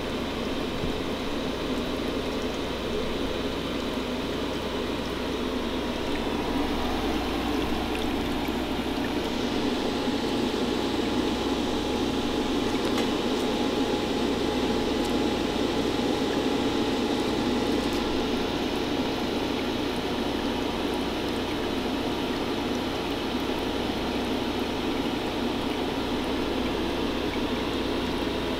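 Homemade fog tornado machine running: the fan runs steadily over a churning, bubbling sound from its water-filled fog dish. There is no break or sudden event, and it gets slightly louder a few seconds in.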